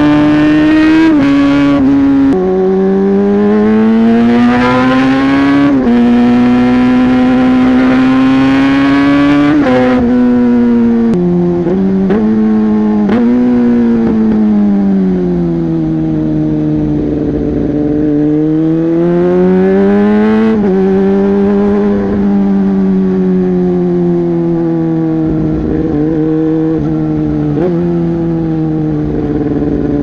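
Yamaha YZF-R6 inline-four engine with an SC Project exhaust, under way and heard from the rider's seat. The revs climb and drop again and again through gear changes, with several quick drops close together around the middle, a slow fall and climb after that, and a gradual fall near the end.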